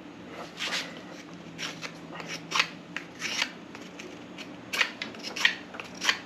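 Blade carving a split cedar fence picket into a bow drill spindle: about a dozen short, irregular shaving strokes as wood is taken off to square its sides.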